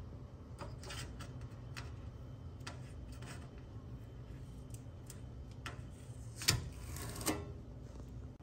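Breville bread maker's control panel clicking as its select dial is turned and buttons are pressed: about a dozen short, irregular clicks, the sharpest about six and a half seconds in, over a low steady hum.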